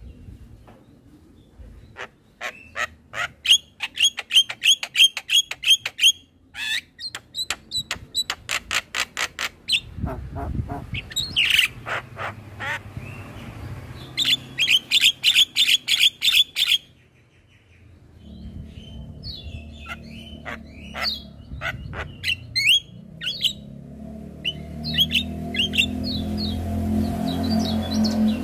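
Javan myna calling: bursts of rapid, sharp repeated notes, about four or five a second, broken by gliding whistles and squawks. A low rumble comes in about two-thirds of the way through and grows louder.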